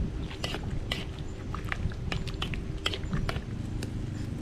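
Irregular sharp crackles and pops over a low rumble, from a wok of curry sauce simmering over a wood fire.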